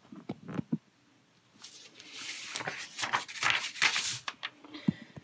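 Paper rustling as a model kit's instruction booklet is opened and its pages are turned and pressed flat by hand, a few light clicks first, then a louder stretch of crinkling and rubbing in the middle.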